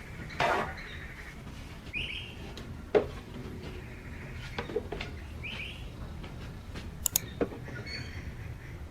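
Food containers and items being handled and set down while a fridge is organized: sharp clicks and knocks at irregular intervals, the loudest about three seconds in, with a short rising chirp twice, a few seconds apart.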